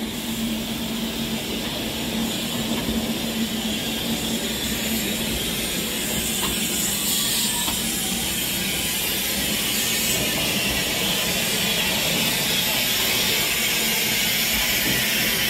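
Steam locomotive hissing steadily, the hiss growing gradually louder.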